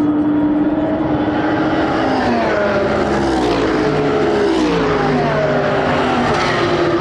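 Endurance race cars at speed, with several engine notes overlapping. Their pitch drops noticeably in the middle as the cars go by or lift and shift down.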